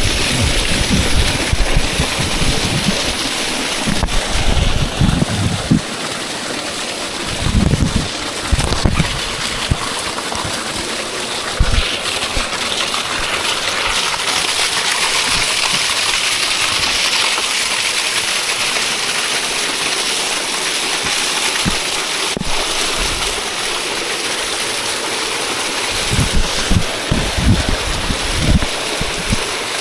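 Waterfall water rushing steadily, with low thumps and rumbles on the microphone now and then, most in the first ten seconds and again near the end.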